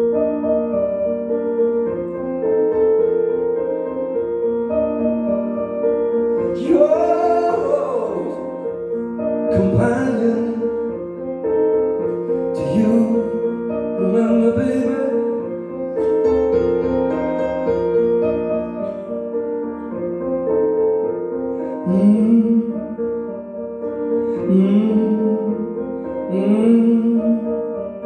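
Live song played on keyboards: sustained, held chords, with a woman's voice singing phrases over them from about seven seconds in.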